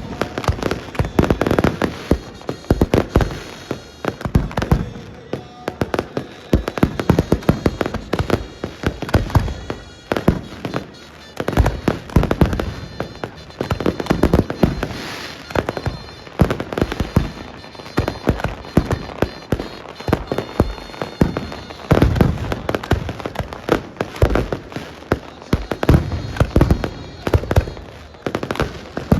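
Fireworks and firecrackers going off nonstop: rapid strings of sharp cracks and bangs, bunched in dense bursts with short lulls between.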